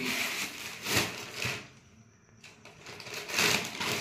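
Rustling and crinkling of shopping bags and plastic packaging as they are handled, in several short bursts with a brief lull about two seconds in.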